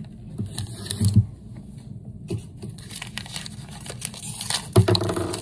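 Crinkling and tearing of a small plastic wrapper being handled and opened by hand, with a couple of low bumps about a second in and near the end.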